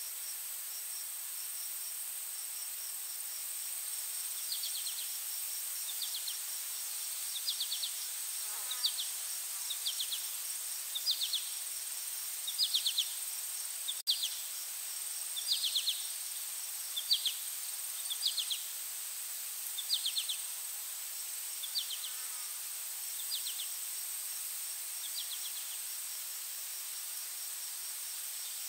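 Insect chorus: a steady high-pitched drone with a fast ticking trill under it, and short pulsed cricket chirps about once a second that start a few seconds in and fade out near the end.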